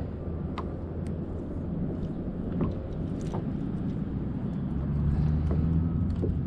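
Steady low hum of a boat motor, with scattered light clicks and knocks on the boat.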